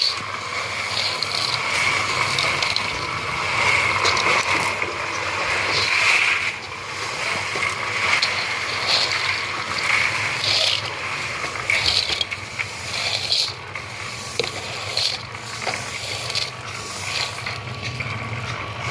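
Construction machinery running steadily, with a constant whine over rattling and clanking mechanical noise.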